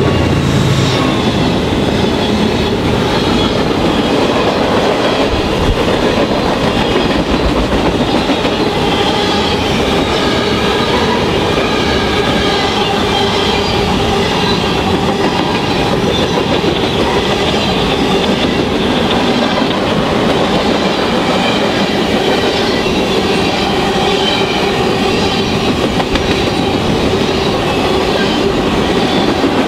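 Norfolk Southern freight train passing close by: the diesel locomotives' engines go past in about the first second, then a steady loud rush of freight cars rolling over the rails.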